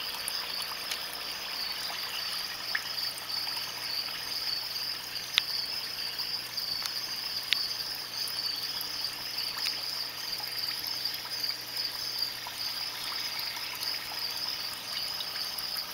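Air-stone bubbler running in a shallow water dish of gravel: steady bubbling and trickling of water, with a few small clicks. Under it sits a low hum, and over it a steady high whine.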